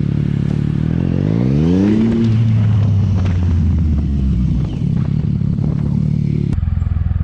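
Sport motorcycle's engine running while riding, the revs climbing for about a second from about a second in, then holding steady.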